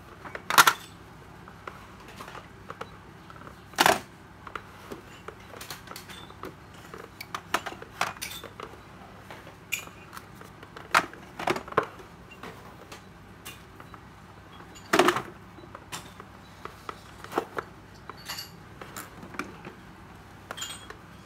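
Hard plastic battery-charger casings clacking and knocking as they are handled and set down on a tiled floor: scattered light clicks with a handful of louder clacks.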